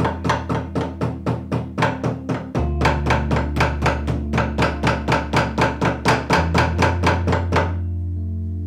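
A bookbinder's hammer tapping the spine of a book block clamped in a wooden press, with rapid, even taps about four a second that stop near the end. Calm background music with held low notes plays underneath.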